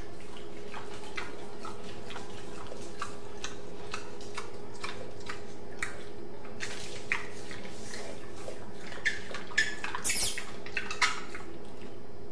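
Two pigs eating off a tiled floor: irregular wet smacking and clicking from their mouths and snouts, with a cluster of louder clicks about nine to eleven seconds in.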